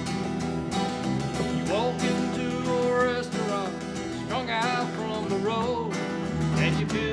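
Several acoustic guitars strumming chords together in a slow rock ballad, with a lead melody of notes that bend and slide in pitch laid over them.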